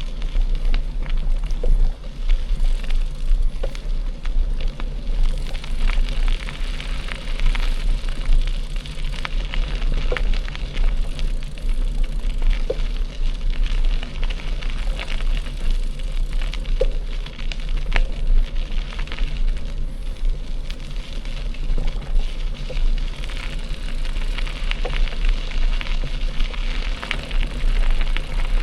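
Mountain bike tyres rolling over a gravel forest road, a steady crunching hiss dotted with small crackles and pops from loose stones, over a deep rumble of wind buffeting the microphone.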